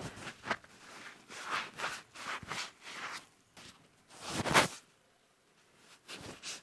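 Scratchy rubbing and handling noises in irregular strokes of about half a second each, with the loudest stroke about four and a half seconds in.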